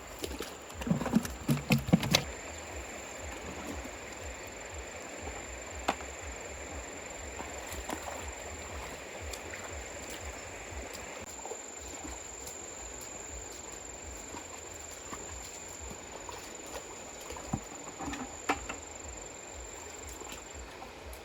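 Small engine-driven water pump running steadily. A cluster of loud knocks or splashes falls about one to two seconds in.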